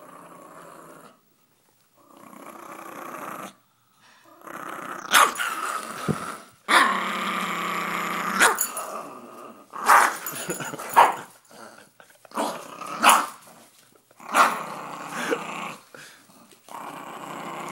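Maltipoo puppy growling in repeated bouts, louder from a few seconds in, with a few short sharp barks mixed in: possessive growling while she guards a ten-dollar bill from a reaching hand.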